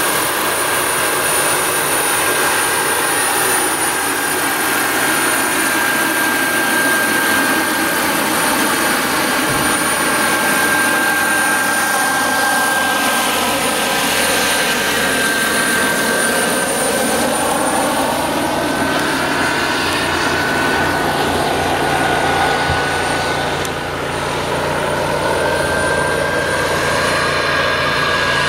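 Giant radio-controlled Kamov Ka-32A model helicopter with coaxial twin rotors in flight: a steady high whine over continuous rotor noise. The tone shifts midway as it flies past.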